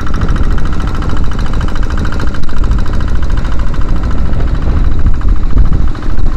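Small outrigger fishing boat's engine running steadily, with choppy waves splashing against the hull and outrigger float.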